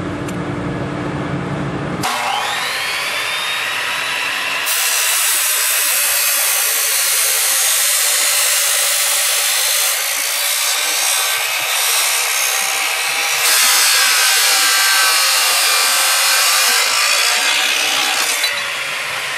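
Chop saw cutting through a BMW S50 six-cylinder cam tray. The motor starts about two seconds in and spins up with a rising whine, then the blade bites into the cast aluminium with a loud, steady grinding cut that gets heavier in the middle. Near the end the cut finishes and the sound drops back.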